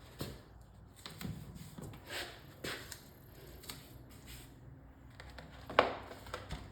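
Rustling and crinkling as a vinyl stripe with its masking tape is handled and positioned, in short scattered bursts, with one sharp smack about six seconds in.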